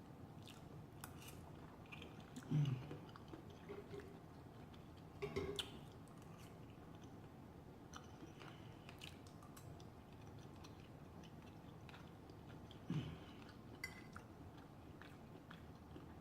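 A person quietly chewing food close to the microphone, with soft wet mouth clicks and a few brief, slightly louder mouth sounds spread through.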